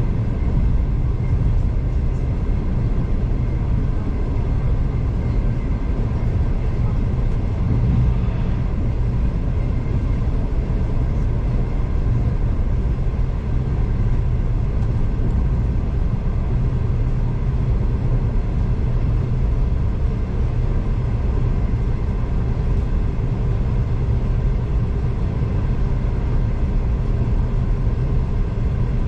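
V/Line passenger train running along the track, heard from inside the carriage: a steady low rumble with a faint constant hum over it.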